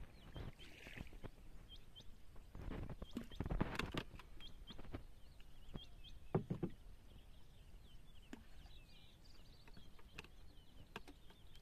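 Small birds chirping, short high calls repeated throughout, over water sloshing and a few knocks, loudest about four seconds in and again a little past six seconds.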